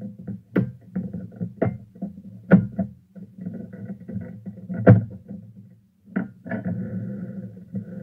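Background music, over which come about six sharp clicks and knocks as a putty knife pries at the edge of a Torpedo typewriter's bottom cover; the loudest knock comes about five seconds in.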